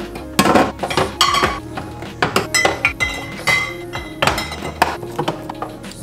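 Plastic refrigerator door bins and the containers in them being handled, giving a string of sharp clinks and knocks, some with a brief ring, over soft background music.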